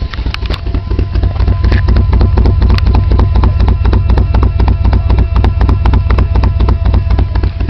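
BMW M20B20 2.0-litre straight-six running roughly, with a heavy, uneven pulsing of about six beats a second that grows louder about a second in. The rough running comes from fuel starvation: the owner traced it to a failing fuel pump.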